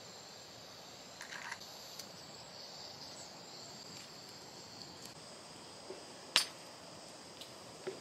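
Camping gas stove hissing faintly and steadily as gas flows from its cartridge, with a few small clicks and one sharp click about six seconds in.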